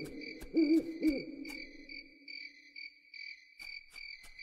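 Recorded spooky sound effect from a Halloween show soundtrack: an owl hooting and crickets chirping. Several low, wavering hoots come in the first second or so and then die away, over a steady cricket chirp pulsing about twice a second, with a few scattered sharp clicks.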